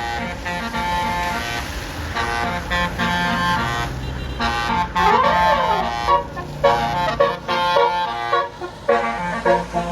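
Bus telolet horn of the Basuri type playing a tune of several stepped notes, with two tones sweeping up and down across each other about halfway through, over the low rumble of a vehicle engine.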